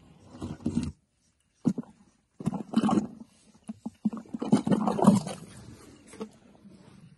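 Elephant's trunk sucking up water from a small hole dug in the sand, in four or so irregular draws of a second or less.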